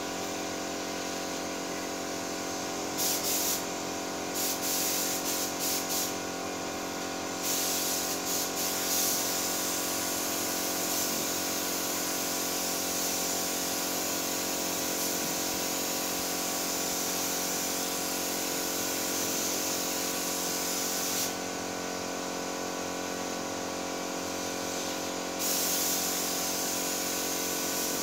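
Pneumatic paint spray gun hissing as it sprays paint onto a car body, triggered in short bursts at first, then held on in a long pass that stops about 21 seconds in and resumes near the end. A steady machine hum runs underneath.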